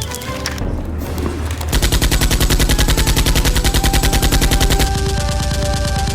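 Rapid automatic gunfire, a fast, even rattle of shots starting about two seconds in, over background music.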